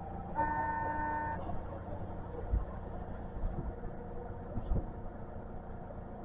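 Osaka Metro New Tram, a rubber-tyred driverless automated guideway train, running with a steady low rumble heard inside the car. A steady electronic tone sounds for about a second near the start, and a few low thumps come through in the middle.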